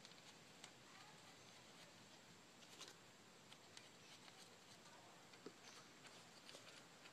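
Near silence with a scattered handful of faint clicks from gloved hands handling and fitting timing-chain guide parts on an engine.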